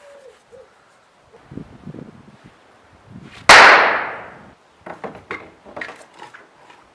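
A single loud gunshot about three and a half seconds in, ringing out for about a second. Softer knocks and scuffs come before and after it.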